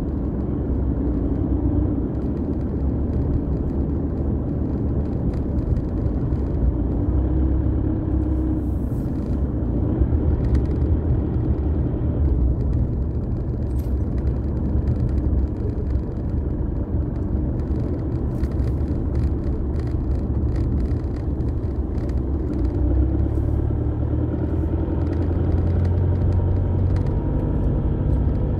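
Steady low rumble of a car driving, heard from inside the cabin: engine and tyre noise on a rough rural road, with occasional faint ticks.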